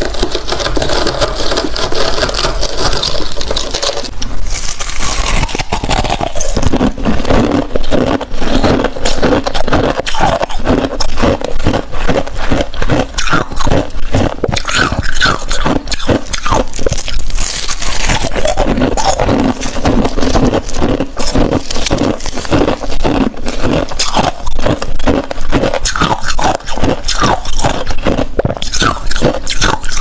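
Close-miked scraping and crunching of thick, fluffy freezer frost: gloved hands scrape it off the freezer walls, then squeeze and crush handfuls of it in a dense run of crackling crunches.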